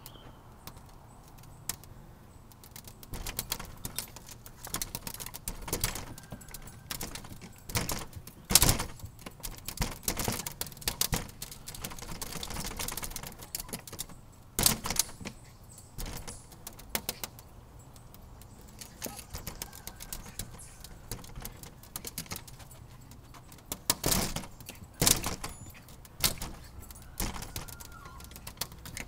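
Irregular clicks, taps and scrapes on a glass storm door: a small jackapoo's claws and teeth striking the glass as it jumps and snaps at a plastic fly swatter pressed against the other side. A few sharper knocks stand out among the taps.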